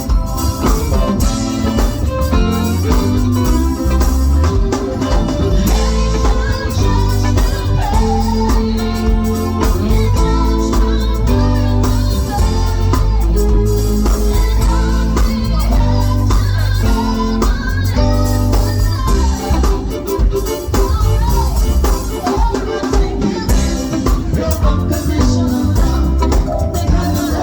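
Band music with a strong bass line and a steady beat.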